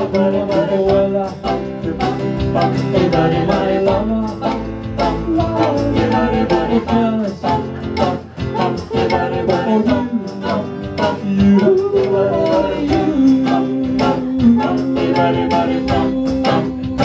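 Small live band playing a song, plucked guitars under singing, with one note held through the last few seconds.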